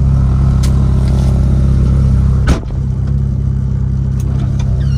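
Car engine idling steadily, heard from inside the cabin, with the passenger door slamming shut about two and a half seconds in.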